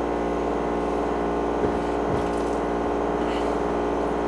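A steady mechanical hum, like a motor or fan running, holding level throughout, with two faint soft knocks about two seconds in.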